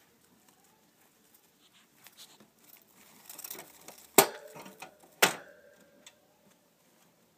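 Small clicks and rustling of movement in a plastic and wire hamster cage, then two sharp knocks on the cage about a second apart, past the middle. The second knock rings briefly.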